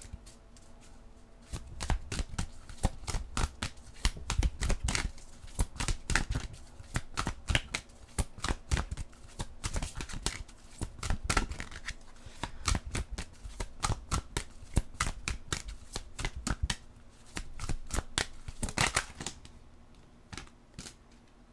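A deck of oracle cards being shuffled by hand: a long run of quick, papery card slaps and flicks that starts about two seconds in and stops a couple of seconds before the end.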